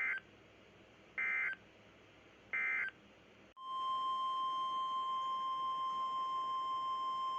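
Three short bursts of SAME digital data tones, each about a third of a second: the end-of-message code closing a weather radio alert. About a second after the last burst a loud, steady, single-pitch alarm tone of about 1050 Hz starts, the weather radio warning alarm tone that comes before the next warning.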